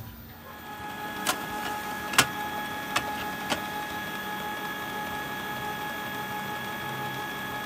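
Canon Pixma G1010 inkjet printer running its print mechanism: a steady motor whine starts about half a second in, with four sharp clicks in the first few seconds, the loudest about two seconds in, as it feeds a sheet for a test print.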